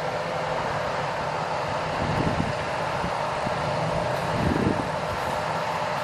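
John Deere T670i combine harvester running steadily while cutting barley: a constant machine drone from the engine and threshing works, with faint steady whining tones. Two brief low swells come about two and four and a half seconds in.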